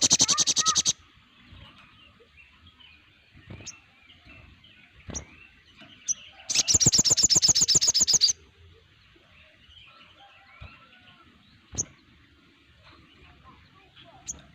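Sogon (crimson sunbirds) calling: a loud, fast trill of sharp high notes at the start, and another about six and a half seconds in lasting nearly two seconds. Single sharp chirps come between them, over faint twittering from other birds.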